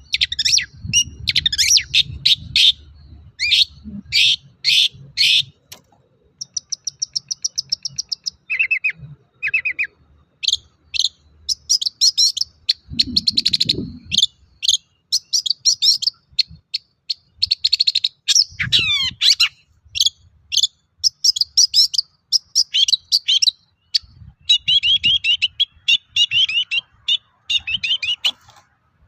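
Long-tailed shrike (cendet) in full, continuous song (gacor): rapid runs of short, sharp high notes, broken by fast rattling trills and a quick falling sweep about two-thirds of the way through.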